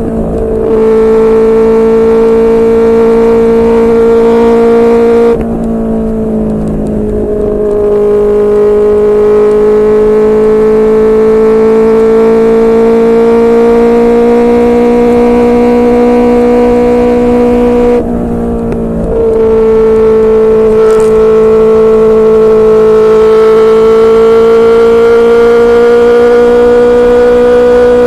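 QJMotor SRK600 inline-four engine through a Yoshimura R11 exhaust, running at steady cruising throttle. The note drops briefly about five seconds in and again about eighteen seconds in, as at a gear change or throttle lift, then climbs slowly.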